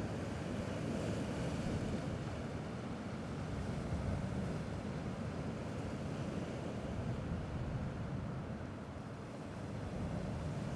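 Gentle sea waves washing in a steady soft rush, easing slightly about nine seconds in.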